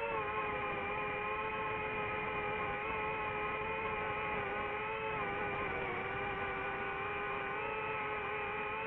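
DJI FPV drone's propellers and motors whining steadily, the pitch drifting slightly up and down as the throttle changes in flight.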